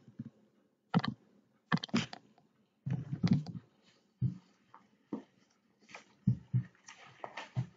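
Irregular clicking and tapping at a computer: mouse and keyboard, about a dozen sharp clicks spread over several seconds with short pauses between them.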